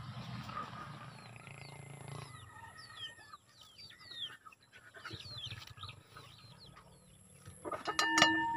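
Chickens calling, a run of short high chirps and clucks. Near the end, a metal cooking-pot lid clatters and rings briefly as it is lifted.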